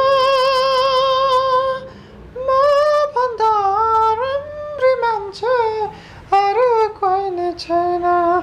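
A high, unaccompanied singing voice: one long note held with vibrato for about two seconds, then a string of short sung phrases that slide up and down in pitch.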